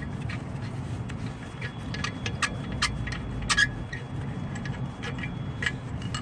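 Ratchet wrench clicking in irregular runs as the long 14 mm alternator mounting bolt is backed out, over a steady low background hum.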